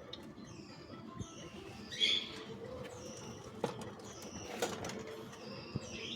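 Birds chirping, short high calls repeated several times, the loudest about two seconds in, with a few sharp clicks or taps.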